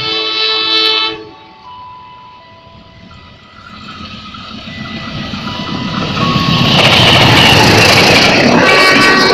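A loud horn sounds for about a second at the start with a short break. Then a passenger train comes on at speed, its rumble building over several seconds until the coaches rush past with loud wheel and rail noise. A brief high tone sounds near the end.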